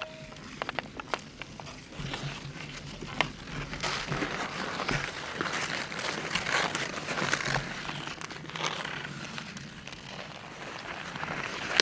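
Ice skate blades scraping and carving on natural pond ice, mixed with sharp clacks of hockey sticks hitting a puck. The loudest clack comes a little past three seconds in.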